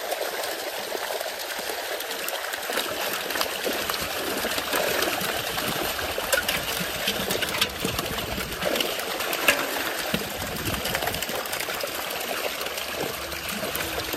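Many live fish thrashing in a crowded drag net in shallow pond water, a steady irregular splashing and trickling, with hands scooping fish out of the water.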